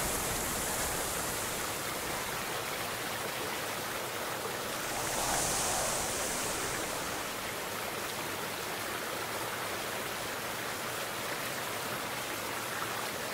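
Shallow rocky stream flowing, a steady rush of water that swells briefly about five seconds in.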